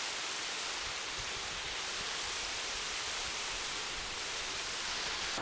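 Waterfall and river rushing steadily: an even hiss of falling water with little low rumble.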